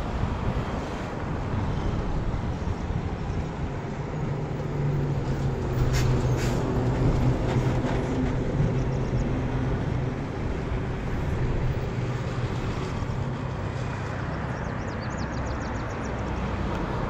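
Motor vehicle passing on a road, its engine hum louder for several seconds in the middle, over a steady outdoor rumble.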